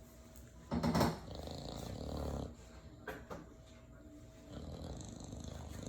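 English bulldog snoring in its sleep: two long, rough snoring breaths, the first starting with a loud, harsh burst about a second in.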